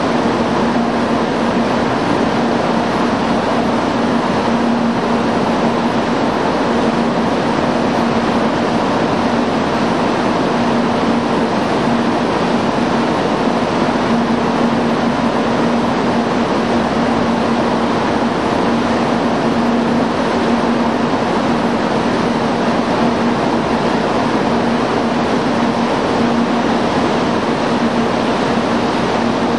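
Steady train hum over a constant rushing noise at a Shinkansen platform. It neither rises nor fades, so it comes from a train standing at the platform rather than from the one pulling away.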